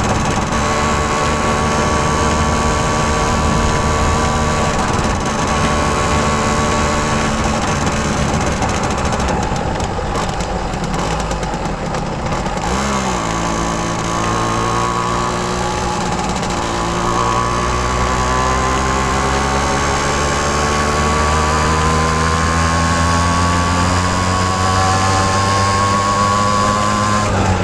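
Simson S51's two-stroke single-cylinder engine running steadily. About halfway through it turns rougher, blips briefly, then its pitch climbs slowly as it gathers revs.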